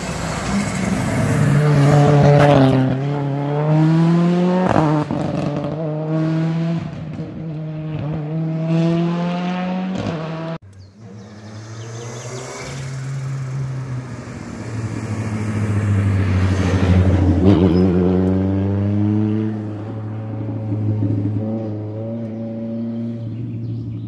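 Rally cars at full throttle, engine pitch climbing and then dropping at each gear change. A hard break about ten seconds in switches to a second car that revs up, peaks and then backs off.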